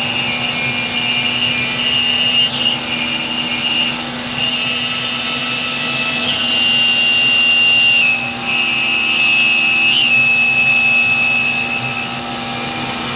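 Homemade CNC milling machine's spindle and end mill cutting a part under flood coolant: a steady high whine over cutting noise, shifting in pitch and level as the tool moves along its path, with a brief dip about eight seconds in.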